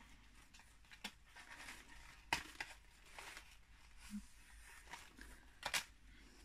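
Faint handling of the paper and cardstock of a handmade scrapbook album: soft rustles as pockets and pages are opened, with a few light taps and clicks. The loudest tap comes about two seconds in, and a quick pair comes near the end.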